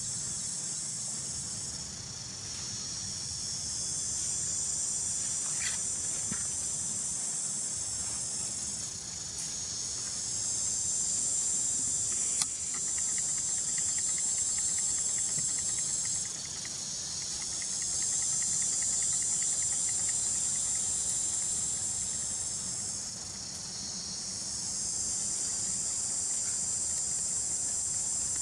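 A high-pitched insect chorus buzzing steadily, swelling and fading in slow waves, with a faint rapid ticking in the middle.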